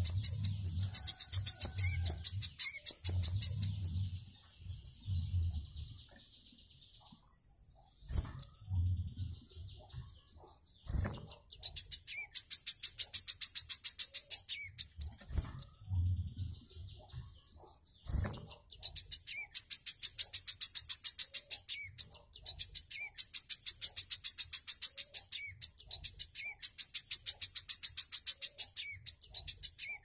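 A caged sunbird singing: long trains of rapid, evenly repeated high, sharp notes, several seconds at a time, broken by short pauses. A few low thumps are mixed in.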